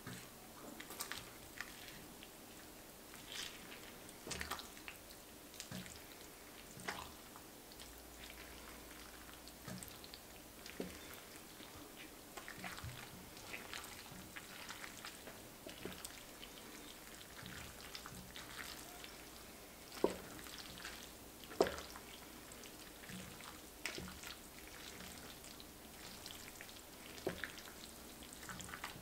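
Slotted wooden spatula stirring saucy baked shell-pasta mac and cheese in a ceramic baking dish: irregular wet squelches and sticky clicks, with a couple of sharper knocks of the spatula against the dish about 20 and 22 seconds in.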